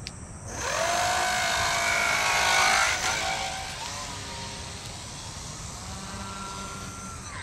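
Small electric RC plane's motor and propeller whining as it is thrown and powers away, the pitch gliding upward about half a second in. About three seconds in the whine drops and grows fainter, rising again briefly as the plane flies off.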